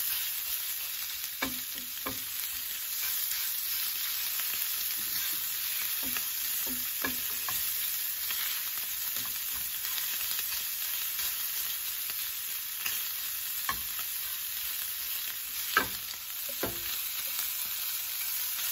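Ground pork and garlic sizzling in oil in a nonstick frying pan, a steady hiss, as a spatula stirs and scrapes through it with occasional short taps on the pan; the loudest tap comes near the end.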